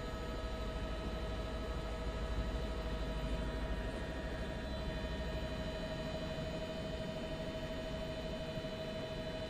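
Steady cabin noise of a news helicopter in flight: a constant whine over a low rumble and hiss, with the rumble easing about four seconds in.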